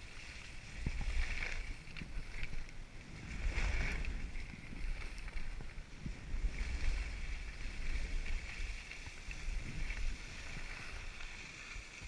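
Skis sliding over snow with a steady hiss, while wind buffets the microphone in low, uneven gusts.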